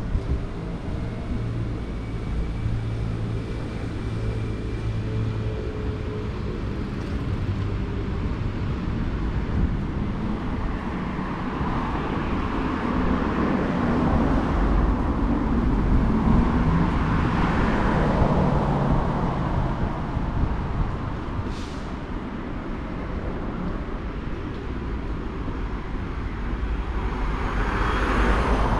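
Street traffic: a vehicle engine idles with a low steady hum, then vehicles pass in a swell of road noise in the middle and again near the end. There is a short high squeak just after the middle.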